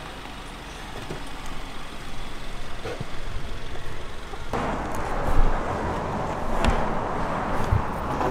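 Ford Mustang rolling slowly past at low speed, its engine running and tyres on pavement, the sound growing louder as it nears. About halfway through a louder, rushing noise takes over, with a few short knocks.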